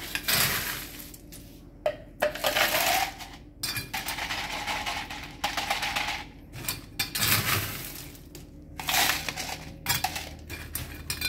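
Ice cubes scooped from an ice bin and clattering into a plastic cup in several rattling bursts.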